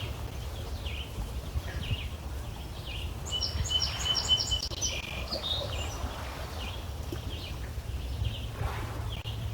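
Small birds calling: short chirps repeat about once a second, with a quick run of high notes about three to five seconds in, over a steady low rumble.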